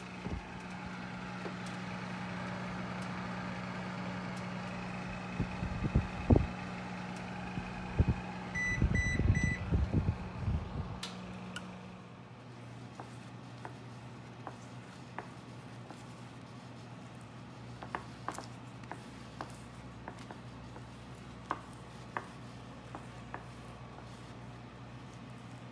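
Three short, even electronic beeps from a Frigidaire oven's control panel about nine seconds in, among knocks and clatter around the oven. A steady low hum runs underneath and drops away about twelve seconds in.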